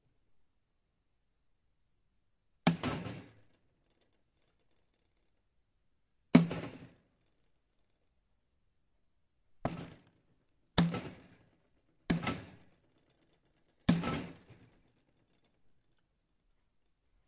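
A screen door slamming shut six times, each slam a sharp bang followed by a brief rattle of the light frame. The first three come a few seconds apart, the last three in quicker succession.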